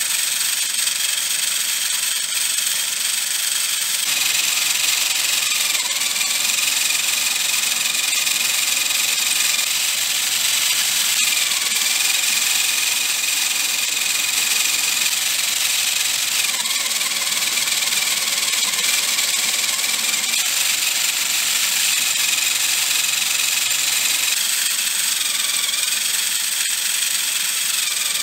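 Homemade PVC engine and gearbox model running: a small electric motor whines steadily as the plastic gears whir. The whine shifts in pitch several times.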